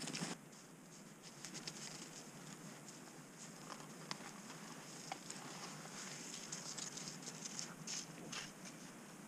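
Crunching footsteps in snow that cut off just after the start, then faint scattered ticks and light patter over a soft outdoor hiss.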